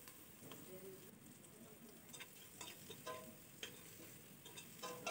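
Faint stirring of onions, green chili and dried lime frying gently in butter in a stainless steel pot: a metal spoon scrapes and taps the pot now and then with a light sizzle, the taps coming as scattered light clicks, more of them in the second half.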